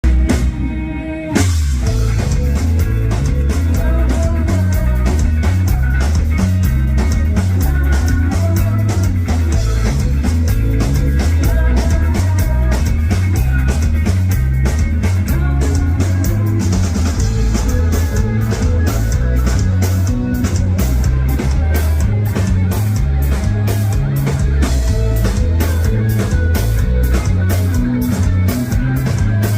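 Rock band music: drum kit keeping a steady beat under bass and guitar, with the full band coming in about a second and a half in.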